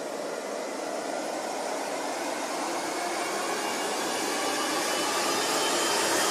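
A steady hissing noise swell that grows louder throughout: a white-noise riser effect in the soundtrack, building toward a transition.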